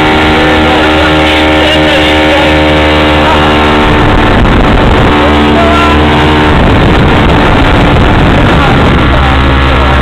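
Motorboat engine running steadily at speed while towing a tube rider. For a few seconds midway, wind rushes over the microphone.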